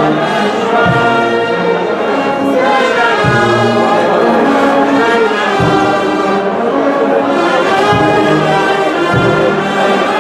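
A brass band playing, brass instruments carrying the tune over low drum beats.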